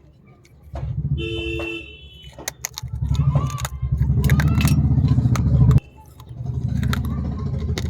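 Street traffic: a vehicle horn sounds briefly about a second in over heavy engine rumble, with scattered sharp crunching clicks.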